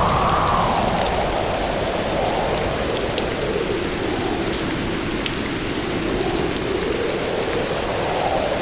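Heavy rain pouring steadily, with fine raindrop ticks, under a whoosh that sinks slowly in pitch and rises again toward the end.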